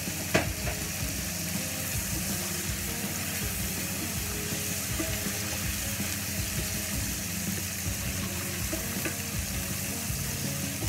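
Chopped anchovies, onion and garlic sizzling steadily in olive oil in an enamelled cast-iron pan, stirred with a wooden spoon while the anchovies fry until crisp. A single sharp knock sounds about half a second in.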